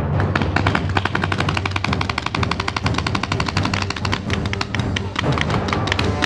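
Paintball markers firing in rapid, overlapping strings as a game begins: a dense, steady crackle of many shots a second.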